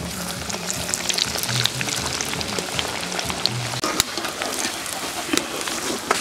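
Cabbage and prawn pakoras deep-frying in hot oil in an iron karahi: a steady sizzle full of fine crackling pops. A single sharp click comes about four seconds in.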